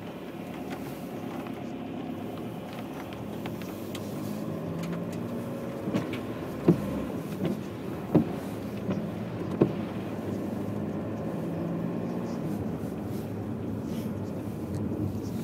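Car driving over snowy, slushy streets heard from inside the cabin: steady engine and tyre noise, with a few sharp knocks about halfway through.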